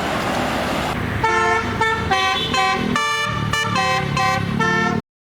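Basuri telolet horn, a multi-tone musical air horn, playing a quick tune of changing notes over engine and traffic noise. The horn starts about a second in and the sound cuts off suddenly near the end.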